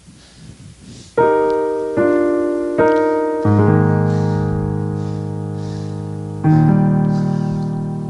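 Keyboard playing slow sustained chords, each struck and left to ring and fade. It starts about a second in, and deep bass notes join from about halfway through.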